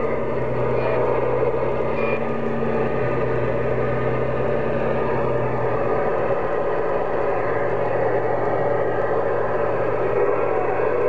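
CB radio receiver on 27.025 MHz giving out steady static and band noise on an open channel between transmissions, with a low hum that fades about halfway through.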